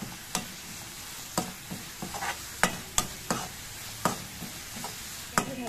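A spatula stirring carrot halwa with chopped nuts in a nonstick pan, clicking and scraping against the pan at uneven intervals over a steady sizzle of the mixture frying in ghee.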